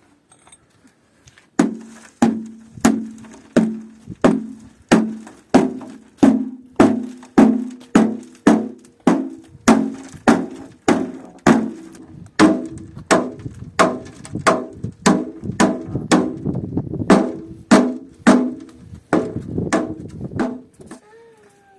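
Repeated blows on wood, about two a second for nearly twenty seconds, each knock ringing briefly, typical of hammering during roof repair work.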